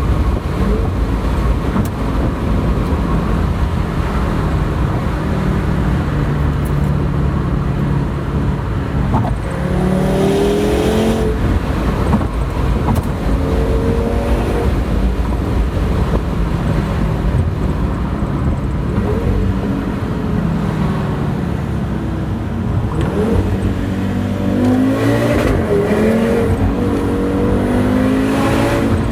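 Audi RS3's APR Stage 2 tuned, turbocharged five-cylinder engine running and accelerating several times, the pitch climbing and dropping about ten seconds in and again through the last few seconds.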